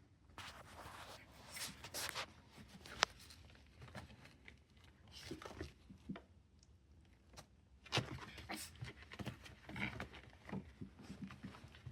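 A Yorkiepoo scratching and tearing at a floor mat: faint, irregular scuffling and scratching, with a sharp click about three seconds in.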